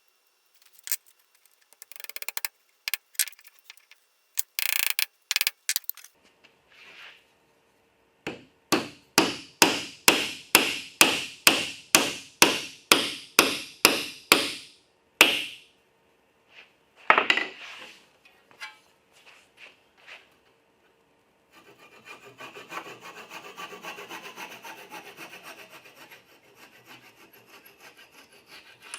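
Hand tools working wood: a few scattered scrapes and knocks, then a steady run of about sixteen even rubbing strokes, roughly two and a half a second. Later comes a softer, continuous scraping on the wood.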